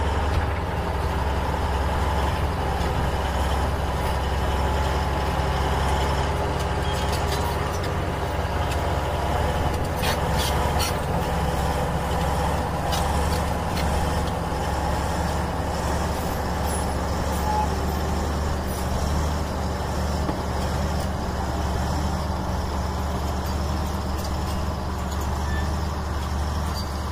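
Strong gusty wind buffeting the microphone: a steady, heavy low rumble.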